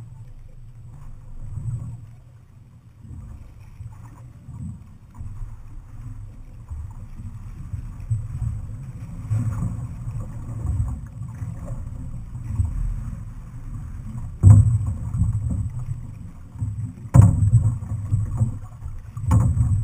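Wind rumbling and buffeting on the microphone of a camera mounted on an outrigger canoe, with water noise from the moving canoe. Three sharp knocks come in the second half, louder than everything else.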